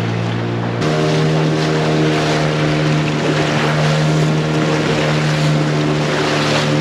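A boat's engine running steadily at an even pitch. About a second in the engine note shifts and water rushing and splashing against the hull joins it as the boat moves.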